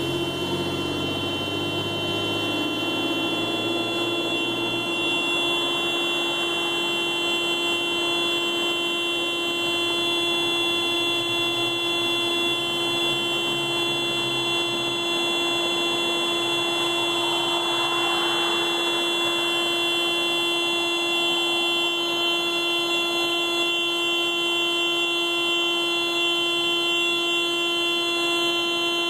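Car alarm sounding the car's horn in one continuous, unbroken steady tone rather than pulsing.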